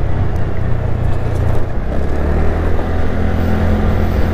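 Motorbike engine running steadily while riding at road speed, a low hum, with wind and road noise rushing over the microphone.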